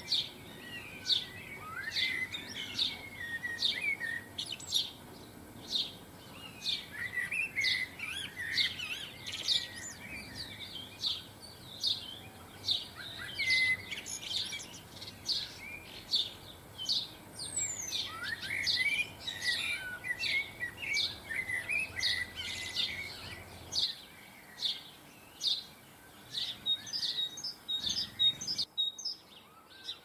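Small garden songbirds calling: a run of short, high chirps repeated a little more than once a second, mixed with bursts of lower twittering. The chirping thins out near the end.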